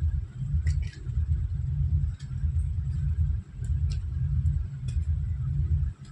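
Uneven low rumble of air buffeting the microphone, with a few light clicks and rustles from bangles and small packets being handled.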